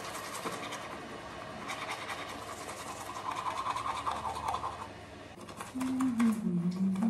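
Teeth being brushed with a toothbrush: a rapid, scratchy scrubbing. Near the end, a short pitched sound that bends up and down.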